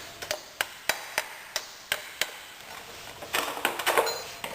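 Hammer tapping on a stuck motorcycle rear axle to drive it out, about seven sharp knocks at a steady pace, then a short stretch of scraping handling noise near the end.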